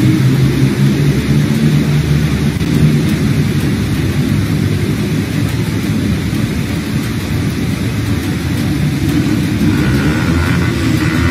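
Heavy rainstorm: a steady hiss of rain over a continuous low rumble, with cars driving on the wet, flooding road below.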